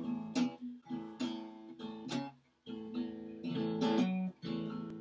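Black cutaway acoustic guitar strummed in chords, a string of strokes with a brief pause about halfway through.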